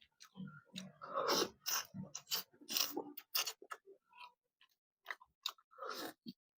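Close-miked chewing and mouth smacks of someone eating a snapper head: a quick run of sharp, wet clicks, with a short lull before a last cluster near the end.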